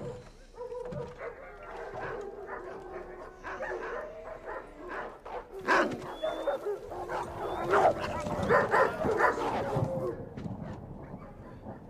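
Dogs howling in long held calls that overlap, with sharper barks and yelps in the second half.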